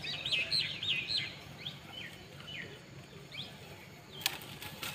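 Small birds chirping: a quick run of up-and-down whistled notes in the first second or so, then scattered single chirps over a low steady rumble. A single sharp click about four seconds in.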